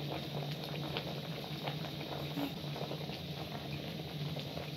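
Water boiling in a metal pot of green bananas, a steady bubbling, with a few faint clicks as a fork prods the bananas to test whether they are cooked.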